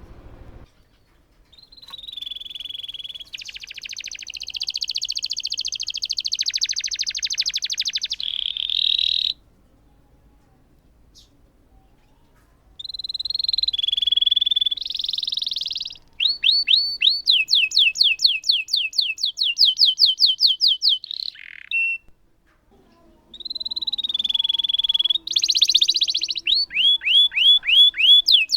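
Domestic canary singing long rolling phrases of rapid trills and repeated chirps. There is a pause of about three seconds a third of the way in and a brief pause later.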